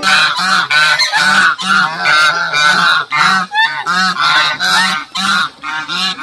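A flock of white domestic geese honking, short loud calls following one another quickly, two or three a second, with a couple of brief gaps.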